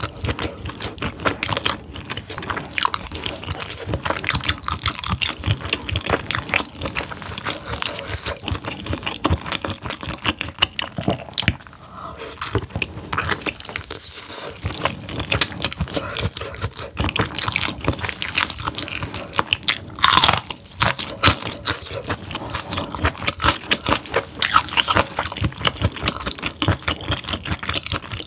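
Close-miked chewing and biting of whole steamed squid: a steady run of irregular clicks and wet mouth sounds as the rubbery flesh is bitten off and chewed, with one louder stroke about two-thirds of the way through.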